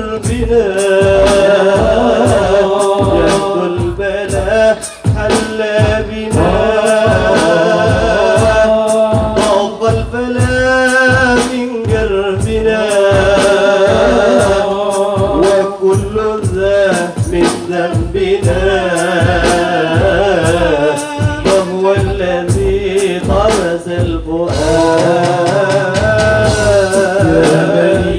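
Group of men singing Islamic devotional songs in praise of the Prophet (sholawat) into microphones, amplified, over a steady low drum beat.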